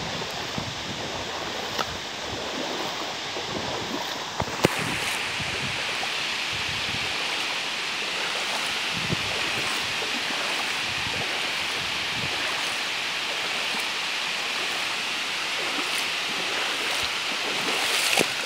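Steady rush of water at a dam, with wind buffeting the microphone. About four and a half seconds in there is a click and the rush turns brighter.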